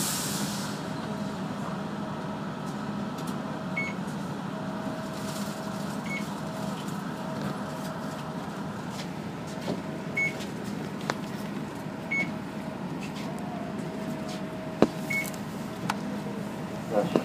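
Inside a city route bus: the engine and drivetrain run with a steady hum, a tone that comes and goes, and small rattles and clicks. A short hiss of air comes right at the start.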